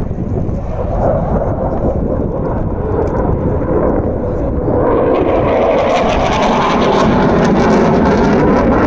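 Fighter jet engine noise from an aerobatic display jet overhead. It grows louder and harsher about five seconds in as the jet comes nearer, with a crackle running through it.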